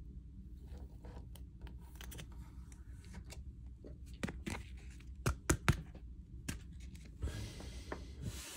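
Trading cards being handled and flipped through: scattered sharp clicks and light scrapes of card stock, with three louder snaps about five to six seconds in and a soft sliding rustle near the end.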